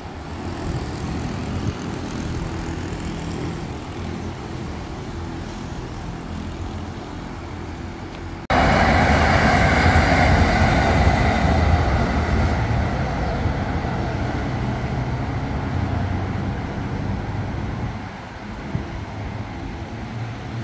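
Road traffic noise. About eight seconds in the sound cuts abruptly to much louder, close traffic, which slowly fades.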